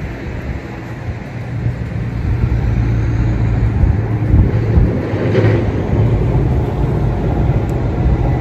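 Boat motor running with a steady low hum and rumble, getting louder about two seconds in, with a brief brighter noise a little past the middle.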